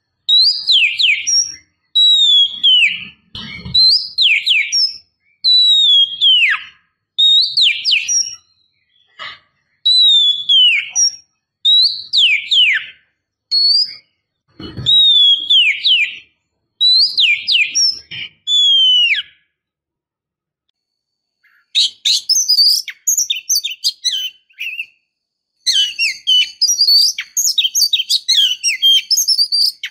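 Female Oriental magpie-robin (kacer) calling: a run of loud whistles, each falling in pitch, about one a second. After a short pause about two-thirds through it breaks into a fast, busy twittering chatter. These are the calls a female in breeding condition gives to draw males and rouse them into singing.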